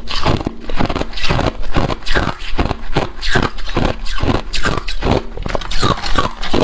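Freezer frost being scraped in quick repeated strokes, about two to three a second, with squeaky, crunchy scrapes.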